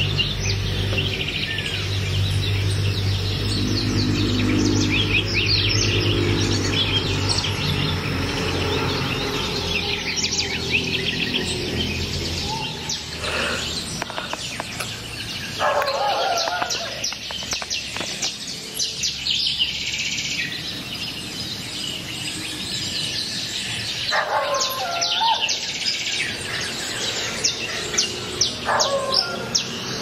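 Morning chorus of many birds, with rapid chirps and trills overlapping throughout. A louder, lower warbling song breaks in a few times in the second half. A low steady hum sits under the first part and then fades out.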